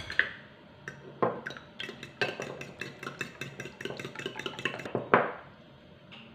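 Metal fork beating two raw eggs in a small bowl, the tines clinking quickly against the bowl, several strikes a second, for about four seconds. One louder knock near the end, with a few sharp clinks at the very start.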